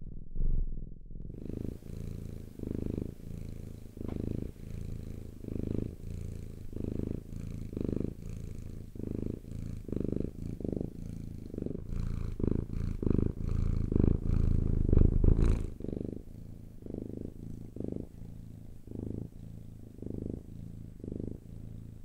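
Domestic cat purring close up, a low continuous purr swelling and fading in a steady rhythm of pulses, loudest about two-thirds of the way through.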